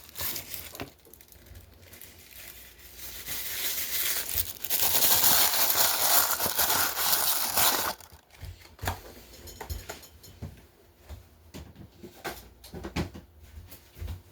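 Plastic packaging crinkling and rustling as it is handled, building up and loudest for a stretch of about three seconds in the middle, then stopping suddenly; after that, scattered small taps and clicks of handling.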